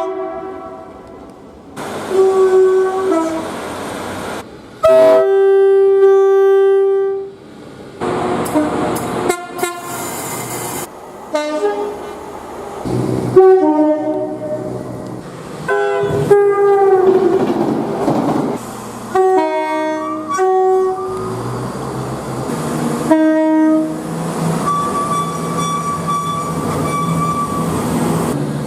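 A quick succession of different train horns sounding, about ten short clips spliced together. Each horn is a steady chord of several tones, some over the noise of a passing train, and each clip cuts off abruptly into the next.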